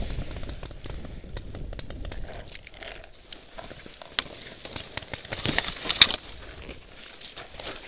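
Dry twigs, leaves and grass rustling and crackling, with many small snaps, as a paintball marker and the player's body move through the brush. A louder sharp scrape or snap comes about six seconds in, as the marker is pushed up into the branches.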